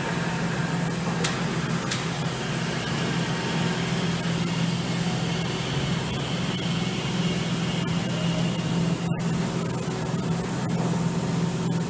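Steady low machine hum over a background of noise, with two brief clicks a second or two in and a short dropout about nine seconds in.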